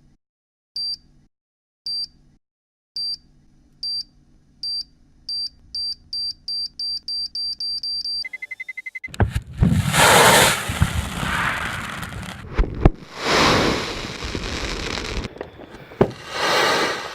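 A countdown of high electronic beeps, slow at first and then speeding up, ends in a steady tone. About nine seconds in, the giant crackle ball of over 2,000 crackle-ball fireworks goes off: loud crackling rushes in several waves, with a few sharp bangs.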